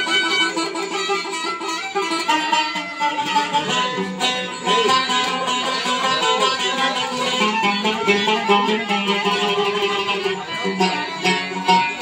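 Live Turkish folk dance music: a violin and a banjo-like plucked string instrument play a melody together over a hand drum keeping time.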